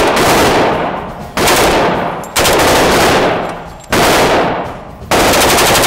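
HK UMP submachine gun in .45 ACP firing in an indoor range: four separate short firings about a second apart, each echoing off the walls, then a longer string of rapid fire starting near the end.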